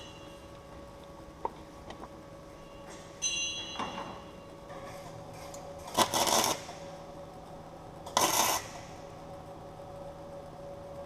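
Workshop work sounds: a few light metallic clinks and rings, then two short loud bursts of hissing about two seconds apart, over a steady background hum.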